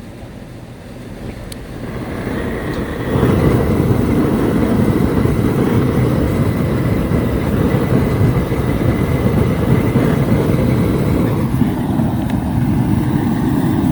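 Propane crawfish burner turned up under a charcoal chimney starter. Its gas flame builds over the first few seconds, then burns with a loud, steady roar of low noise from about three seconds in.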